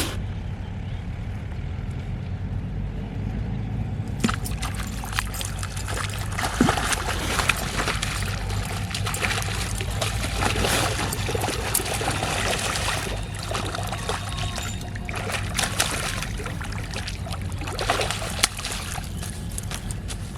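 Water splashing and trickling in irregular bursts, starting about four seconds in, over a steady low rumble.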